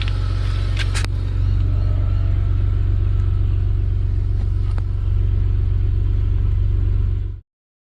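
BMW straight-six engine with individual throttle bodies idling steadily. The engine is still cold, so the idle is a little high. A couple of sharp clicks come about a second in, and the sound cuts off suddenly near the end.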